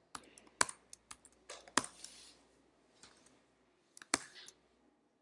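Computer keyboard keystrokes: irregular key clicks, a few louder than the rest, as text is deleted from a query field key by key.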